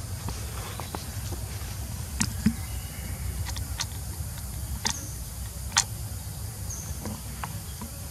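Outdoor background: a steady low rumble with scattered sharp clicks, the loudest about two and a half and six seconds in, and a few short high chirps near the end.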